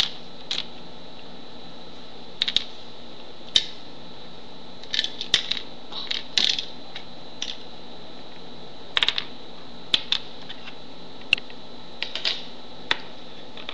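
Small plastic toy figurines being moved by hand and set down on a wooden surface, giving irregular light clicks and taps, a dozen or so scattered through the stretch.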